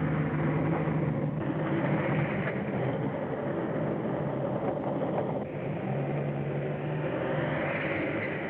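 A motor vehicle's engine running steadily, with a low hum that swells twice.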